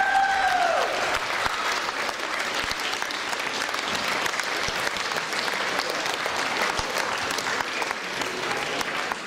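Audience applauding: many hands clapping steadily, with a voice trailing off at the very start.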